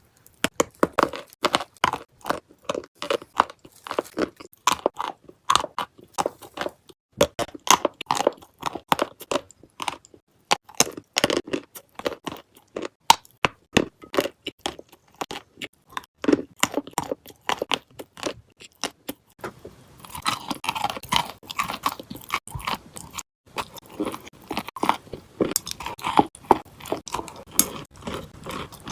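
Close-miked biting and chewing of dry clay mixed with paste: rapid, sharp crunches one after another. About two-thirds of the way in the crunching turns denser and more continuous.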